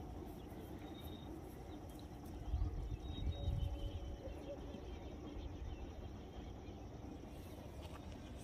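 Quiet rural outdoor ambience with a few faint, short bird chirps. Low rumbling on the microphone from about two and a half to four seconds in.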